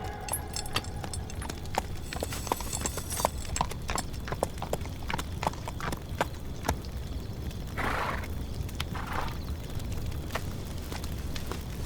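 Horse hooves clopping in an uneven run of sharp hoof strikes over a low rumble, with a short breathy burst from the horse about eight seconds in.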